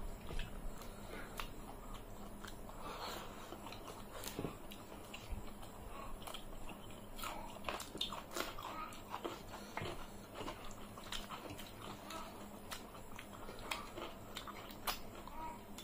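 Close-up eating sounds: chewing mouthfuls of rice and curry, with many small wet clicks as fingers mix rice and touch the metal plates.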